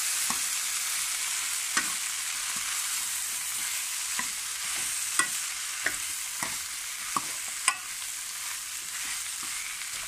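Green beans and potatoes in masala sizzling in a non-stick kadai while a spoon stirs and mixes them, with irregular light clicks of the spoon against the pan.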